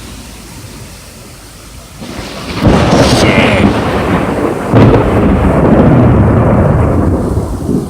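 Big thunder over steady heavy rain: a sudden, very loud clap a few seconds in, a second crack about two seconds later, then a heavy low rumble that eases near the end.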